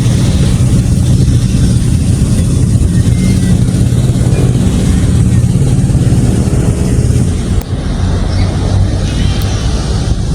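An engine running steadily with a low, even hum, dipping briefly about three-quarters of the way through.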